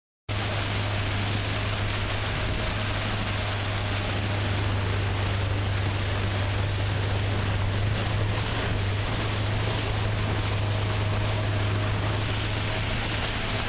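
Boat motor running steadily at speed, a constant low hum under the rush of water churning along the hull.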